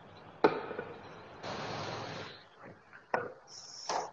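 A sharp knock, then a short rustle and a couple more knocks: a person shifting about and bumping a wooden kitchen counter.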